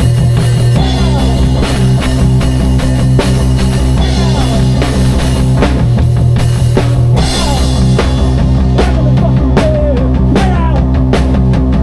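A live rock band jamming loudly: drum kit, bass and electric guitar playing an improvised groove, the guitar bending notes over steady drum hits.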